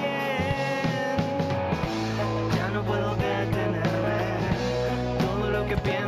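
A rock band playing a song: electric guitar over steady bass notes and regular drum hits, with some singing.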